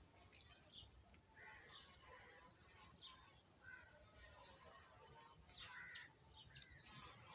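Sparrows chirping faintly: many short, scattered chirps over a low background hiss.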